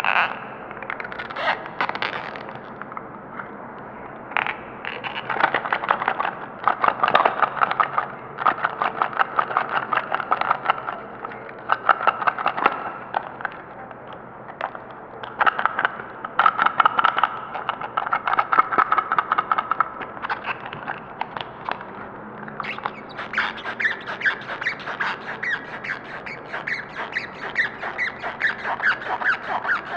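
Squealing and screeching made of many quick, uneven strokes, high-pitched, coming in runs of a few seconds with short pauses between them.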